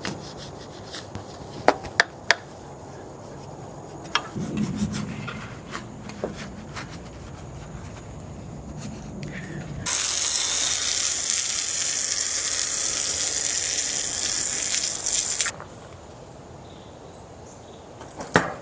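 A spray hissing steadily for about five and a half seconds, starting and stopping abruptly, as the bike is sprayed with cleaner. Before it come a few sharp clicks and light knocks of handling.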